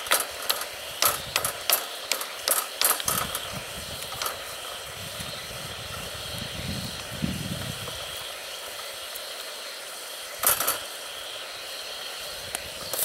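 Sharp, irregular clicks and knocks of a stone on a metal grill grate as a rock is set over the fire to heat for stone boiling, bunched in the first three seconds and again briefly about ten seconds in, over a faint steady hiss.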